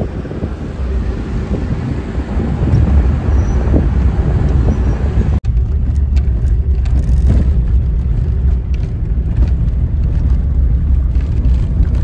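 Steady rumble and road noise of a moving road vehicle, cut off for an instant about five seconds in.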